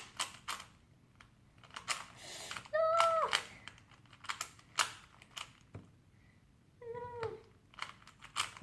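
A plastic Rubik's cube being turned by hand, with quick irregular clicking of its layers. Two short high calls cut in, one about 3 seconds in and one about 7 seconds in, each dropping in pitch at its end; the first is the loudest sound.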